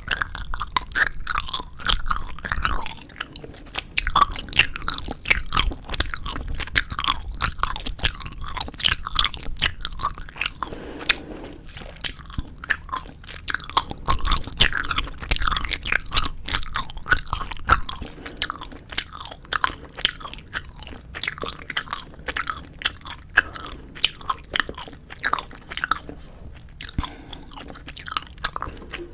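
Close-up chewing of 4D jelly gummy candies: a steady run of many quick sticky clicks and smacks.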